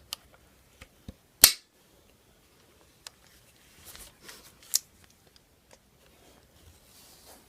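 Plastic clicks and knocks from attachments being fitted onto an ARP9 airsoft gun, with a loud sharp click about a second and a half in, another near five seconds, and light handling rustle between.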